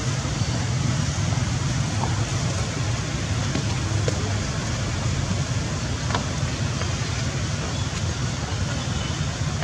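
Steady outdoor background noise with a low rumble under an even hiss, and a few faint short high chirps.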